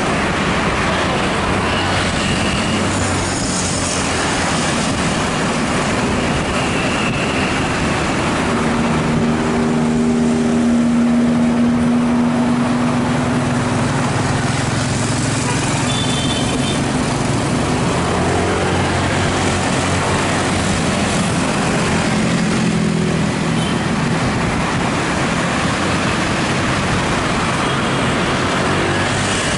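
Continuous road noise of a motorcycle ride through city traffic: an even rush of wind and tyre noise with the motorcycle engine running underneath, its pitch shifting as the speed changes and holding steady for a few seconds near the middle.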